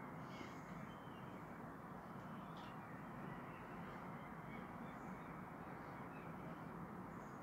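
Steady low background hiss of room tone, with a few faint, brief higher sounds and no speech.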